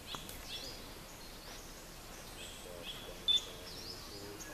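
Forest birds chirping and whistling over a steady outdoor hiss, with one short, sharp high note about three seconds in as the loudest sound.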